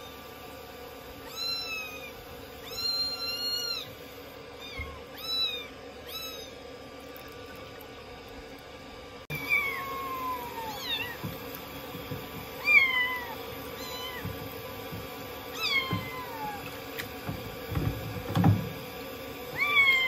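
Young kittens mewing repeatedly over steady running shower water during a bath. In the first half come high, arching mews. After a cut about nine seconds in, a second kitten gives mews that fall in pitch, one every second or two.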